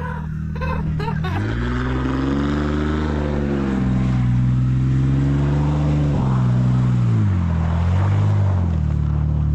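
A car engine revving up and falling back again and again, its pitch climbing and dropping several times, as in donuts on snow.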